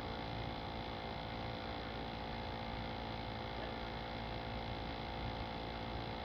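Steady electrical hum with hiss, unchanging throughout.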